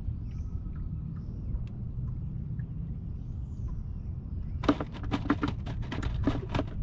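A steady low rumble with faint, high bird chirps, then about two seconds of quick, sharp clicks and knocks near the end.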